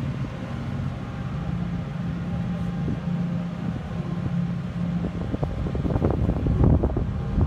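A steady low mechanical hum, with a cluster of knocks and rustling in the last two seconds.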